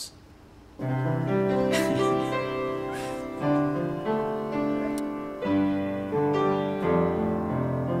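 Slow piano music starting about a second in after a brief pause, sustained chords changing every second or two.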